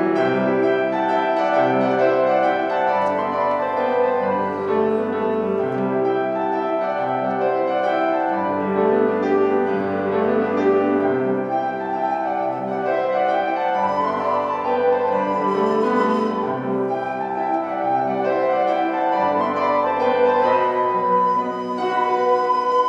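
Grand piano playing a slow passage of chords in a pan flute and piano duet. Near the end a pan flute comes in with held notes over the piano.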